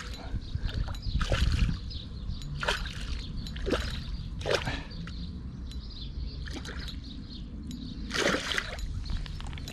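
A hooked pike splashing and thrashing at the water surface beside a landing net: a run of separate splashes, the biggest near the end.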